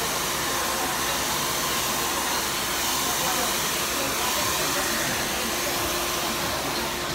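Handheld blow dryer running steadily during a blow-out: an even rush of air with a faint steady hum.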